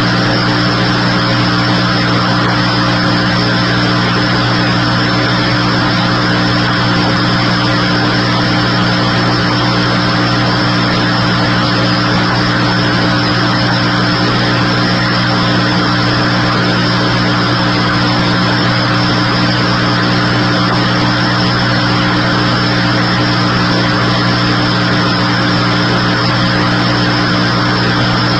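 A loud, steady mechanical drone: a hum of several fixed tones over a hiss, with no change in speed or level.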